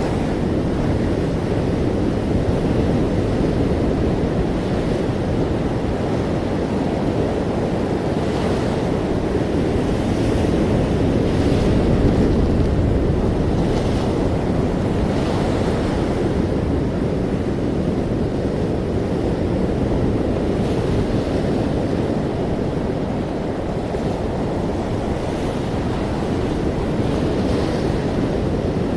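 Ocean waves washing onto a shore in a steady, low rumbling wash, with gentle swells and the faint hiss of a breaking wave every few seconds.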